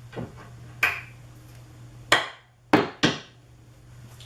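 A hammer striking finishing nails in an MDF panel: five sharp knocks at uneven intervals, the loudest three in the second half.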